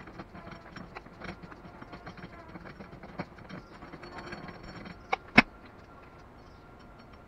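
Hand tools clicking and rattling as a spark plug is worked out of the engine. Two sharp clacks come a little after five seconds in.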